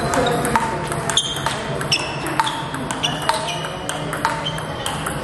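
Table tennis rally: the ball clicking off the paddles and bouncing on the table, a sharp click about every half second, each with a brief ring.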